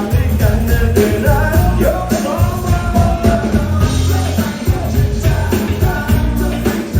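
Live band playing an upbeat rock-and-roll song, with a singing voice over a steady drum beat and bass.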